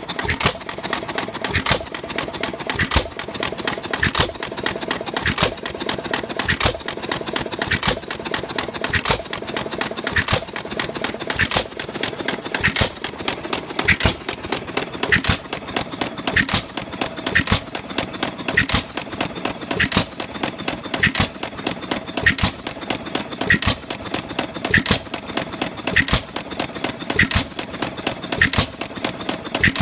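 Single-cylinder hopper-cooled antique stationary gas engine (a "one-lunger") running: a sharp bang a little under once a second, with quicker, lighter clicking between the bangs.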